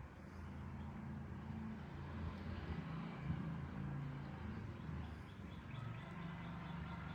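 Quiet outdoor ambience: a low, uneven rumble with faint, repeated bird chirps in the second half.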